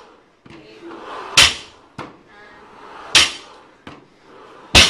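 Loaded barbell's plates hitting the rubber gym floor at the bottom of each deadlift rep: three sharp impacts, about one every 1.7 seconds, with a lighter click between them.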